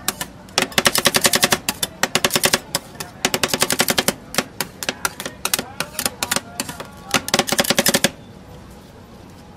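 Metal spatulas rapidly chopping mango and cream on the steel plate of a rolled ice cream cold plate: fast runs of sharp clangs, about ten strikes a second, in bursts with short pauses. The chopping stops near the end.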